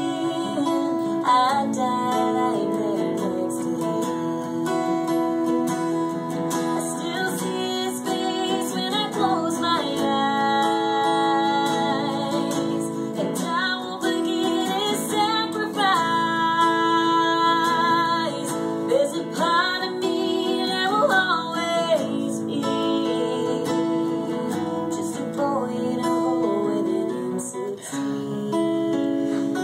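A woman singing a country song over a single acoustic guitar that is strummed and picked.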